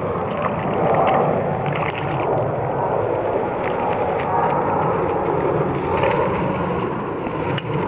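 Small stream's water rushing steadily over a riffle, with a few faint knocks.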